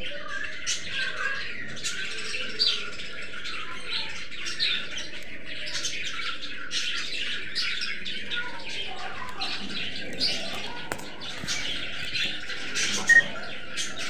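A flock of budgerigars chattering, with many short overlapping chirps and warbles and a louder squawk near the end.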